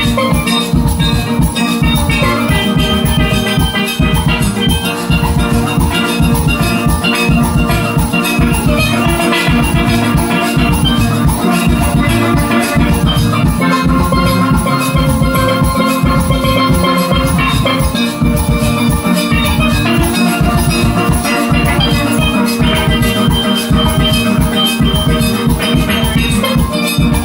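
Steel band playing a tune: many steelpans ringing together over a steady low drum beat.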